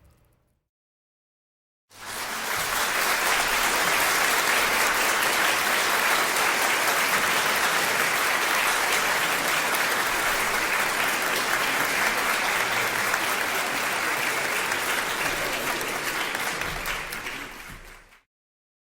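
Large indoor crowd applauding steadily, a dense even clapping that starts about two seconds in and fades out shortly before the end.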